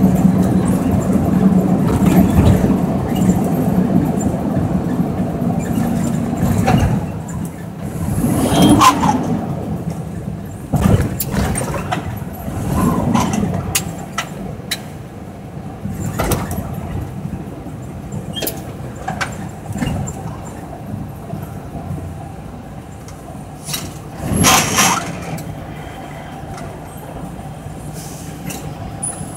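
Mack work truck's diesel engine running under the cab while driving, a steady drone that eases off after about seven seconds as the truck slows in traffic. Cab rattles and clicks run throughout, with two short hissing bursts, one near the middle and one near the end.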